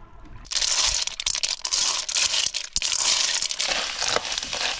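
River snails in their shells frying in a metal wok, a dense crackling sizzle full of sharp pops that starts suddenly about half a second in, with the ladle stirring and knocking the shells.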